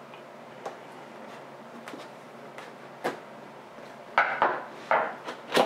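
Cardboard power-supply box being handled on a desk: a few scattered light clicks as the seal is worked at with a screwdriver, then three louder knocks and scrapes in the last second and a half as the box is tipped up and moved on the table.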